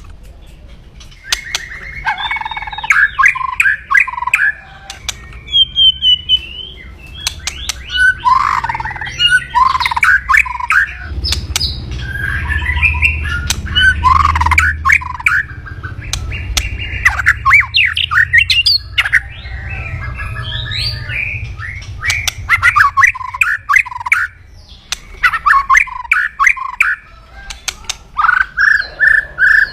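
White-rumped shama (murai batu) giving loud, harsh rattling 'kretekan' calls: rapid bursts of clicking, crackling notes broken by short song phrases.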